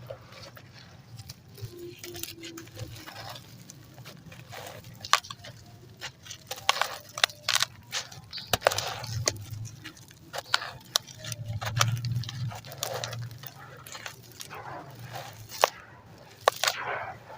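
Lumps of dry concrete and ash crumbling in the hands, with irregular crisp snaps and crunches that grow much busier after about six seconds.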